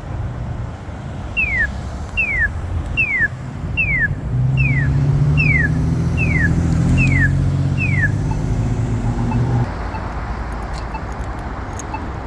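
Road traffic at an intersection: a vehicle's engine hum swells and is loudest through the middle, then fades. Over it, a high chirp falls in pitch nine times at even spacing, about one every 0.8 s.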